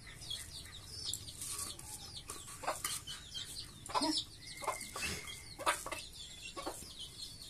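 A domestic hen clucking while her chicks peep repeatedly in short, high chirps.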